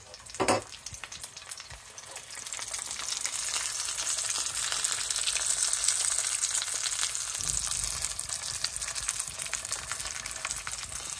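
Thick bone-in pork chop searing in hot oil in a cast-iron skillet: a steady sizzle that swells louder a few seconds in.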